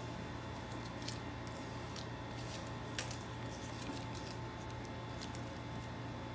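Masking tape crinkling and crackling as it is lifted off a painted hood and balled up in the hands, a few sharp crackles with the loudest about three seconds in. A steady hum runs underneath.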